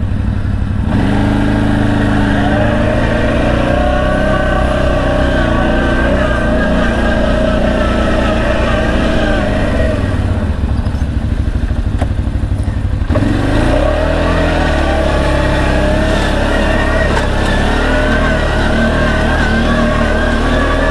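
CFMoto X8 ATV's V-twin engine running under load on a short climb in four-wheel drive, its pitch wavering with the throttle. It eases off about ten seconds in and revs up again about three seconds later.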